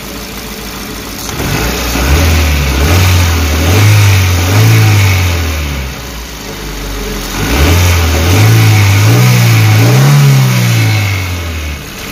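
Suzuki APV's four-cylinder petrol engine revved twice from idle, each rev held for about four seconds before dropping back. It runs evenly, its misfiring cylinder cured by new spark plug and coil work.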